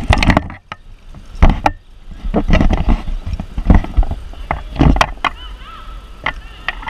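Handling noise on a body-worn action camera as its wearer walks and turns: irregular knocks and bumps with a low rumble, several of them loud. A brief faint whistling chirp comes about two-thirds of the way through.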